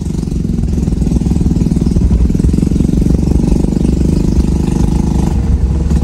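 Motorcycle engine running steadily with a fast, even pulse, getting louder over the first second.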